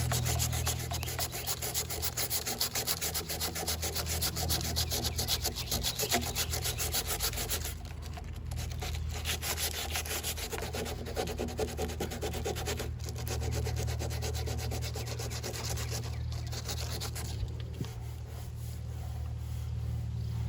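Rapid, repeated rubbing and scraping strokes on a car body panel during Bondo filler work, busiest for the first several seconds and then lighter, over a steady low hum.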